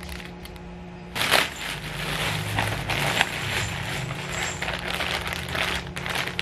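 Plastic packaging of a pack of disposable diapers crinkling and rustling as it is handled, starting about a second in.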